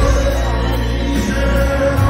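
Live concert music: a male singer with a full band, amplified through the hall's sound system and recorded from within the crowd.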